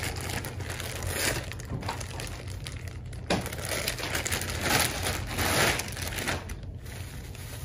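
Clear plastic zip-top bag crinkling as it is pulled open and a knit top is drawn out of it, in irregular rustles that are loudest about five seconds in.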